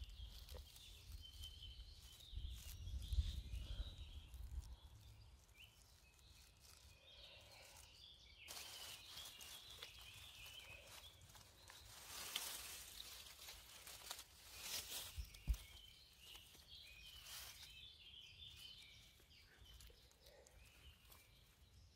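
Quiet forest-floor sounds: dry fallen leaves and grass rustling as hands move through them, with a few louder rustles and bumps in the second half and a low rumble on the microphone in the first few seconds, over faint high chirping.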